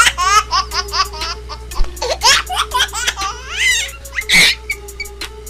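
High-pitched laughter in rapid pulses, rising and falling in pitch several times a second, with a short loud burst a little past four seconds; a steady background tone of music runs underneath.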